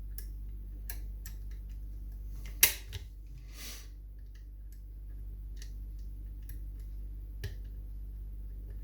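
Scattered small metallic clicks and ticks of a wire lock pick working the levers of a Union 2134 lever mortice lock, with one sharp louder click about two and a half seconds in followed by a brief scrape, over a low steady hum.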